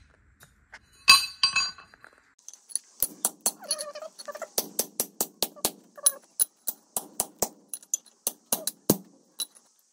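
Hammer striking a flat steel bar with sharp metallic clinks: one ringing blow about a second in, then a steady run of about three or four blows a second. The bar is being beaten cold to bend it into a clamp.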